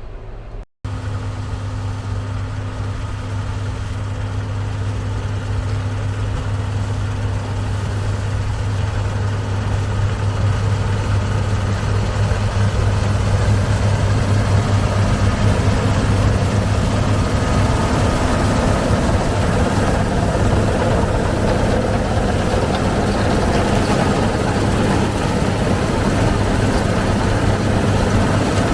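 Tractor diesel engine running steadily with a low hum, growing louder over the first dozen seconds and then holding level.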